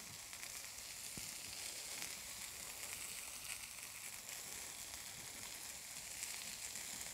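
Pieces of chicken sizzling in a little oil in a stainless steel sauté pan, a steady hiss as they finish cooking through.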